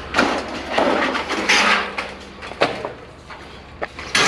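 Scrap sheet tin being handled: irregular scraping and rustling with a sharp knock partway through, and a louder burst near the end.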